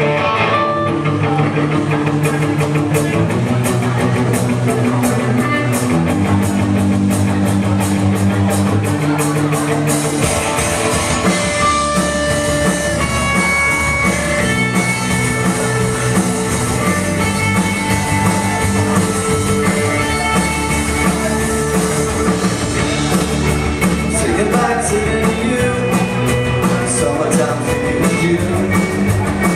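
Live rock band playing an instrumental passage on electric guitar, bass and drum kit. Held guitar chords open it, steady cymbal strikes come in about two seconds in, and the full band with bass and drums kicks in about a third of the way through.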